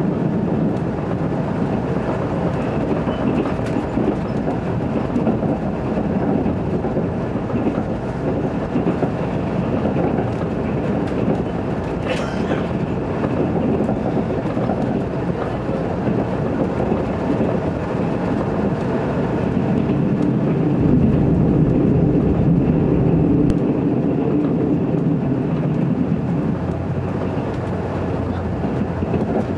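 381 series limited express electric train running along the line, heard from inside the passenger car: a steady rumble of wheels on rails.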